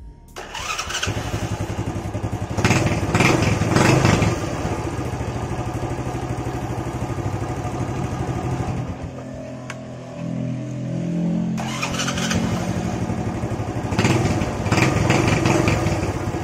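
Honda Astrea Grand's small single-cylinder four-stroke engine starting right away and running, blipped up in revs about three seconds in and again near the end, dropping back to a lower idle in between. The starter circuit now works after a brittle cable connection was repaired.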